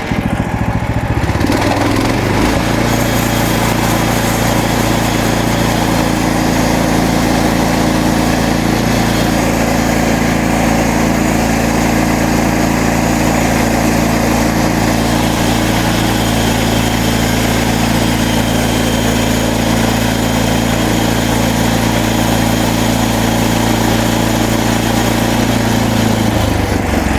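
Gas engine of a MechMaxx SM32 bandsaw mill, speeding up about two seconds in and running steadily while the blade cuts a board from a cedar log, then dropping back right at the end.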